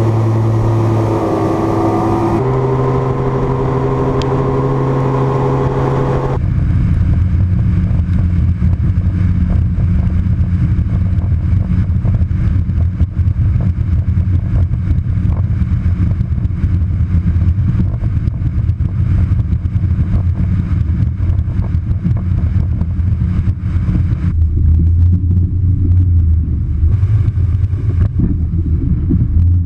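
Johnson Fast Strike V6 two-stroke outboard running at speed, pushing a bass boat across open water, the engine note steady. From about six seconds in, rushing water and wind noise cover much of the engine.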